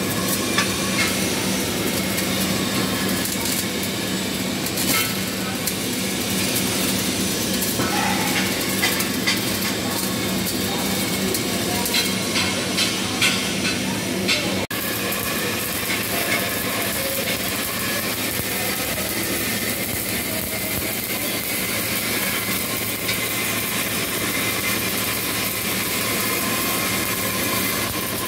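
Flux-cored arc welding: the steady crackling hiss of the arc, with sharper crackles and pops in the first half. The sound drops out for an instant about halfway, then the steady arc noise goes on.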